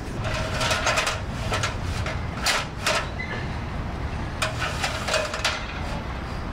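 Clusters of short, sharp clattering knocks over a steady low street rumble.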